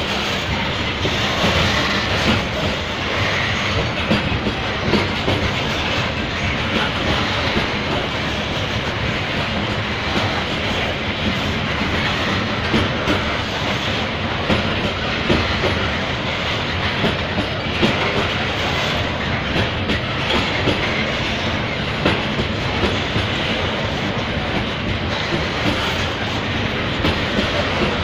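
Freight train of covered cement hopper wagons rolling past, with a steady rumble of steel wheels on the rails and irregular clacking as the wheels pass over the track.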